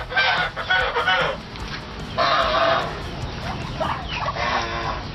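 Domestic ducks quacking loudly, a few calls of about a second each with short pauses between them.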